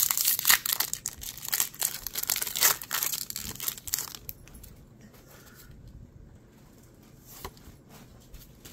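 Foil Pokémon booster pack wrapper being torn open and crinkled, a dense crackling for about four seconds. After that there is only faint rustling and a few soft taps.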